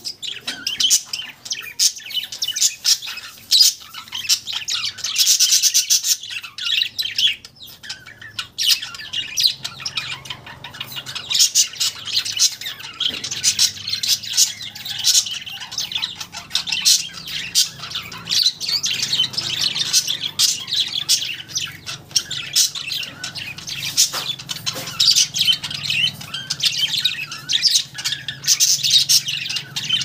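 Budgerigars chattering: a continuous run of short, high chirps and squawks with no pause.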